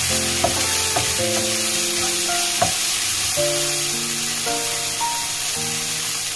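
Pounded chili-and-garlic spice paste with petai beans sizzling in a frying pan. A wooden spatula scrapes and taps the pan a few times in the first three seconds. Soft background music with held notes plays over it.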